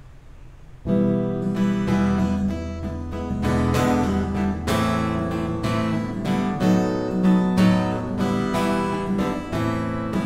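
Acoustic guitar strumming chords, starting about a second in, as the introduction to a sung hymn.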